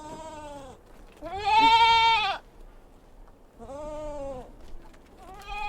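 Bleating livestock: four separate bleats, each rising and falling in pitch, the second about a second in and the loudest and longest.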